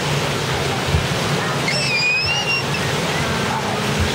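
Steady rush of pool water splashing and sloshing around a person and a baby playing in it, with a short high squeal about two seconds in.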